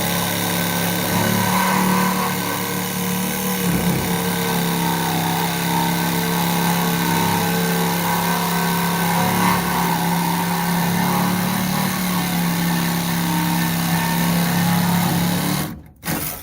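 Power tool running steadily under load, cutting through the metal of a rusted torsion-bar bracket. It stops shortly before the end, then gives one brief blip.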